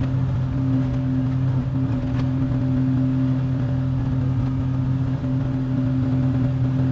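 Excavator's diesel engine running at a steady hum while it digs pond mud, with no change in pitch.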